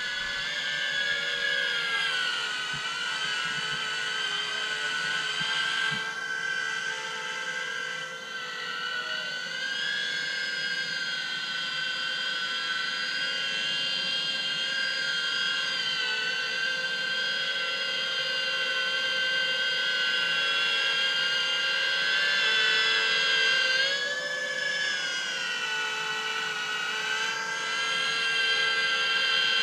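Diatone GT-R90 micro quadcopter's brushless motors and propellers whining, several tones together that waver up and down with throttle and swell up briefly near the end. The quad is working hard to carry a 1500 mAh 3S battery, needing about half throttle just to get off the ground.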